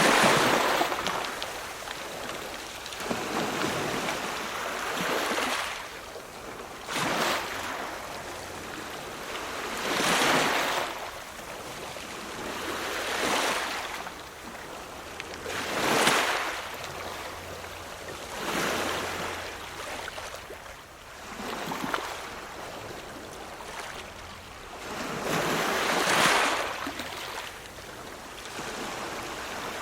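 Ocean waves washing in, a surge of surf every two to four seconds, some surges louder than others.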